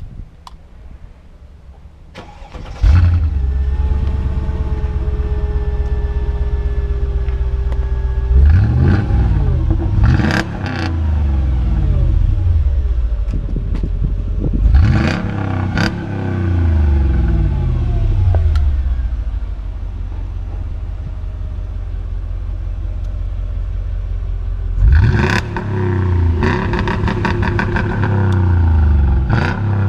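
Mercedes-Benz ML55 AMG's 5.4-litre V8 cold-starting through its stock exhaust. It fires about three seconds in and settles to a fast cold idle, then is revved four times, each rev rising and falling. After the last rev comes a rapid run of exhaust crackles and pops.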